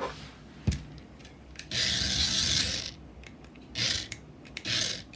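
Small electric motors and plastic gears of a toy remote-control Tombstone battlebot whirring in bursts as it is driven: one longer burst about two seconds in and a few short ones near the end, with a single knock shortly before.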